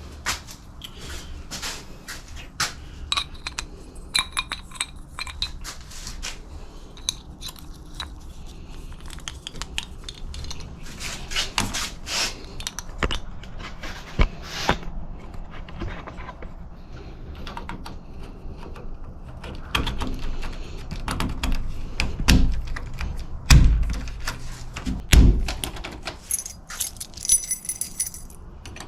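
Keys jangling and door-lock hardware clicking and scraping as locks are handled and fitted. There are three heavy thumps about three quarters of the way through.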